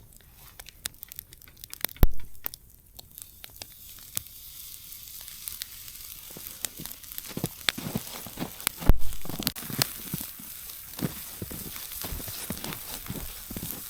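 Bite-size sausage pieces sizzling on a grill over an open wood fire, the hiss building from about four seconds in, with the fire crackling in many sharp pops. Two heavy knocks stand out, about two seconds in and about nine seconds in.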